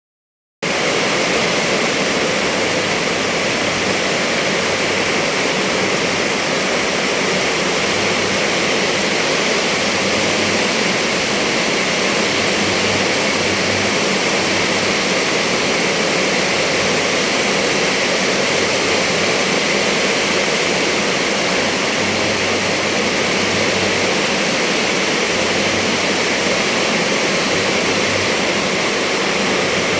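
Steady, heavy rainfall hissing without a break.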